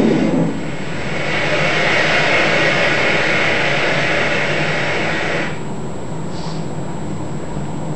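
Rock music cuts off just after the start, followed by a steady rushing noise that fades down about five and a half seconds in.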